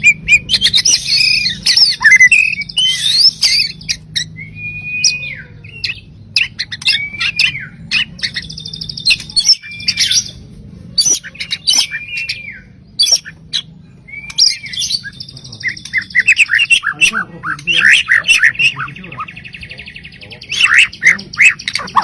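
White-rumped shama (murai batu) singing a varied song: fast high trills and rattles, a run of short arched whistles about once a second in the middle, and sharp clicking notes, over a faint steady low hum.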